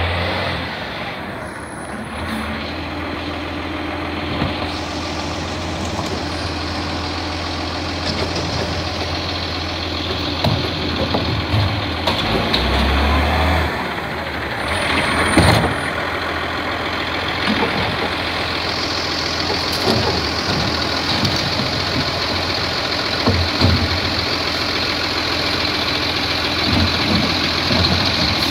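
Side-loader garbage truck's diesel engine running as it pulls up and stops, with a sharp air-brake hiss about halfway through. In the last third a steady higher whine joins the engine as the truck's hydraulic lifting arm reaches out to the bin.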